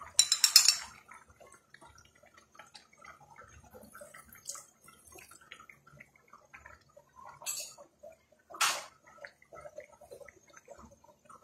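Cornflour slurry splashing into a pan of simmering vegetable and chicken gravy during the first second, then the gravy bubbling faintly with small crackles and drips. Two short sharp clicks come about halfway through.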